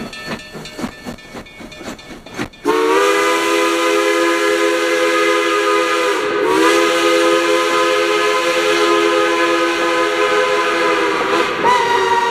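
A K-37 class narrow-gauge steam locomotive working slowly, its exhaust beating rhythmically; about three seconds in its steam whistle opens into a loud multi-note chord, held long, sagging in pitch and resuming twice.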